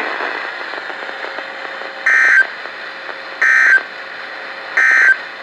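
NOAA Weather Radio end-of-message signal: three short, identical bursts of digital SAME data tones, about a second and a half apart, beginning about two seconds in, over steady radio hiss. The bursts mark the end of the tornado warning alert.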